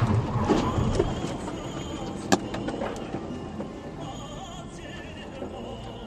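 Road and engine noise inside a car braking hard from highway speed, dying away as it slows. Music plays over it, and there is one sharp click about two seconds in.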